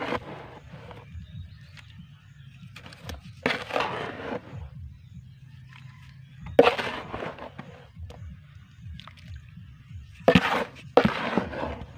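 Hands scooping damp soil from a plastic basin and pressing it around a newly planted seedling: four short bursts of scraping and rustling.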